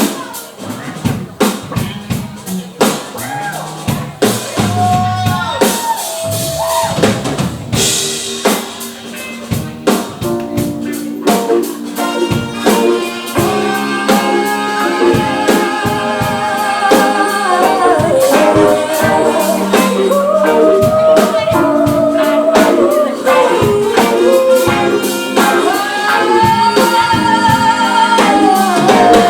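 Live band playing a cover of an R&B-pop song, with a drum kit keeping a steady beat with rimshots under bass and guitar. A cymbal crash comes about eight seconds in, and a lead vocalist comes in singing a few seconds later, holding long notes.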